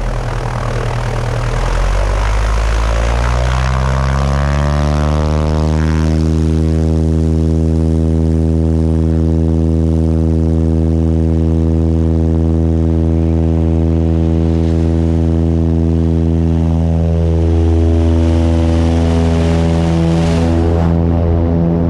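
Piper Pacer's piston engine and propeller picking up speed, rough at first with rising pitch over the first five seconds or so, then running at a steady pitch as the plane taxis.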